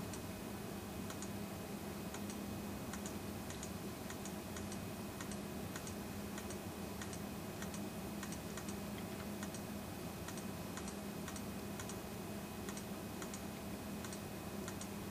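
Light computer clicks, about two a second at uneven spacing, each stepping Excel Solver on to its next iteration, over a steady low hum.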